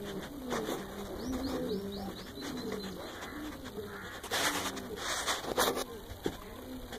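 Pigeons cooing in a steady run of short, repeated low coos, with a few quick high bird chirps about two seconds in. Brief rustling noises stand out about four and a half and five and a half seconds in.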